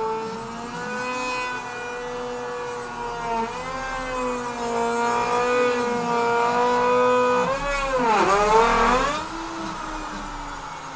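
CNC router spindle whining as it cuts a pocket into a wooden board, its pitch wavering as the cutting load changes. About eight seconds in it bogs down sharply and recovers, loudest at that point.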